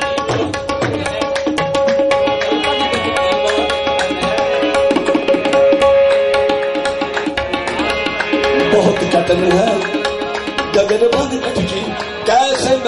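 Qawwali music: a harmonium holding steady notes over fast, continuous tabla strokes, with a voice singing from about eight seconds in.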